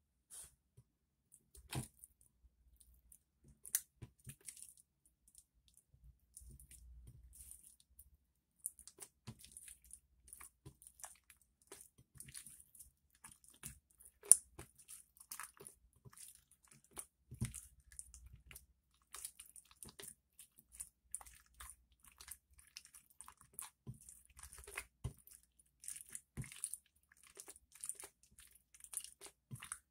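Glossy slime being pressed, folded and pulled by fingers on a glass plate, making a run of small sticky clicks and pops. They are few at first and come thick and fast from about a third of the way in.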